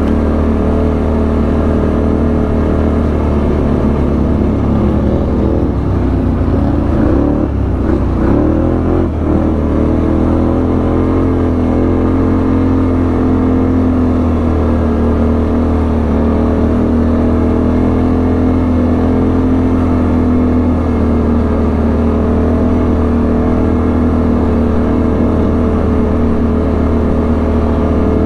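ATV engine running steadily while riding. Its pitch dips and climbs again about seven to nine seconds in.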